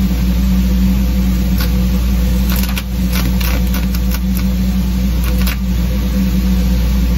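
A stick-welding arc crackles and pops irregularly as the electrode is struck and burns for about three seconds, starting about two and a half seconds in. Under it a loud, steady low machine hum runs throughout.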